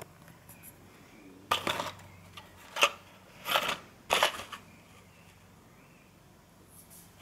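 A cardboard tablet box handled and turned over by hand, giving four short scraping rustles in quick succession, starting about a second and a half in.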